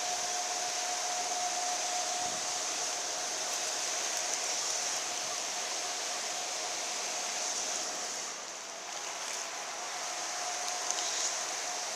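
Steady rush of river water pouring through the tailwater below a hydroelectric dam, with a faint steady tone running under it.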